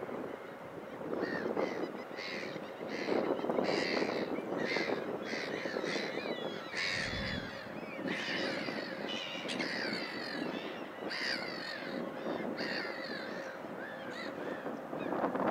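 Birds calling over and over, one or two short calls a second, most of them clustered, over a steady background rush.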